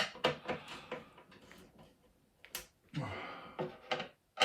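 Sharp clicks and small knocks from a hand screwdriver and the chipboard panels of a flat-pack wall cabinet as its cam-lock fittings are turned and the panels handled, with a short scraping sound a few seconds in.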